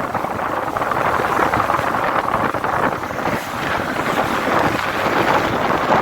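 Steady loud rushing noise of wind buffeting the microphone, mixed with vehicle and traffic noise.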